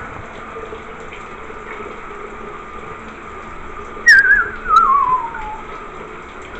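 Shower water running steadily over a wire birdcage and a plastic container. About four seconds in, a loud, wavering whistle glides down in pitch over about a second and a half.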